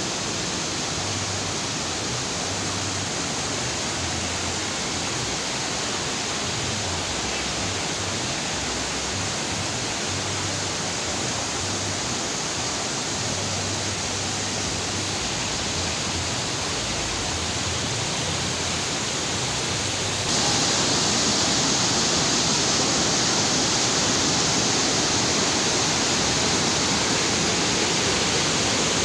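Fast mountain river rushing over rocks: a steady, even rush of white water that turns louder and brighter about twenty seconds in.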